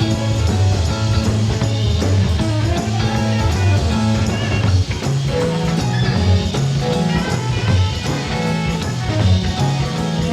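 Live rock band jamming: a bass line with drums and other instruments playing over it.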